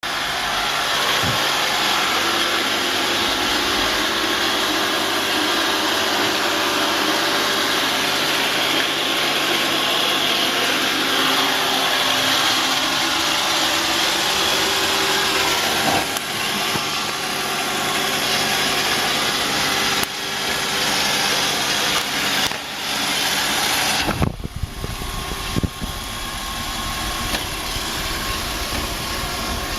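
Roomba robot vacuum running: a steady motor whir and hum with a broad hiss of suction. About 24 seconds in the sound changes, becoming less hissy with several sharp knocks.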